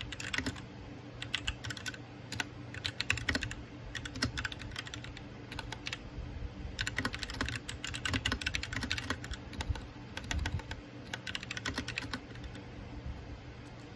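Typing on a white backlit mechanical keyboard with long press-on nails, the keys clacking in quick runs broken by short pauses. The typing stops near the end.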